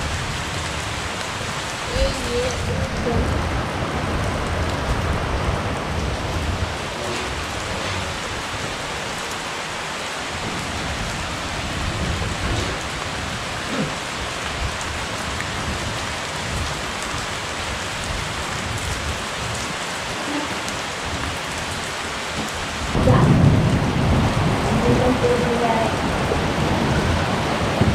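Steady rain falling. About 23 seconds in, a low rumble of thunder swells up and carries on to the end.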